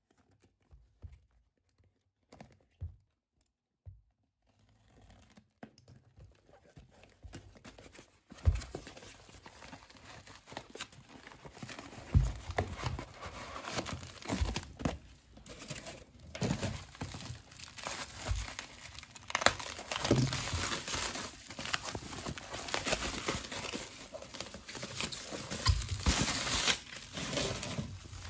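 Cardboard parcel being unpacked: a few light clicks and scrapes as the packing tape is cut, then, from about eight seconds in, continuous crinkling and rustling of bubble wrap and cardboard as the wrapped model engine is lifted out and unwrapped.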